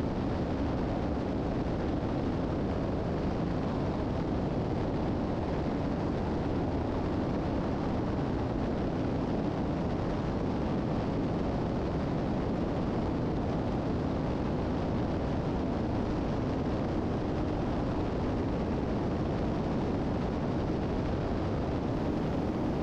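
Steady drone of a 1981 Piper Seneca III's twin engines and propellers, heard inside the cabin in flight. The low rumble holds even throughout.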